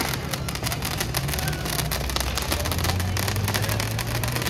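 Rapid crackling of small firecrackers over a low steady hum.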